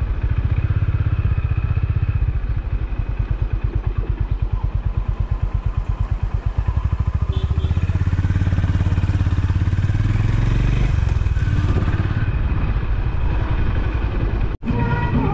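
Honda CB350 RS's single-cylinder engine running under way at low road speed with an even, rapid beat, growing fuller and louder about two-thirds through. The sound breaks off for an instant near the end.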